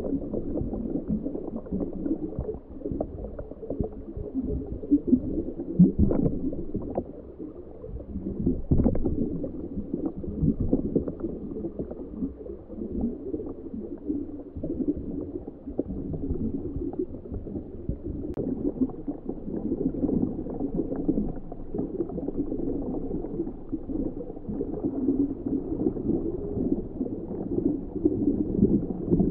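Muffled gurgling water noise with scattered crackles and clicks, picked up underwater by a camera sealed in an ROV's housing.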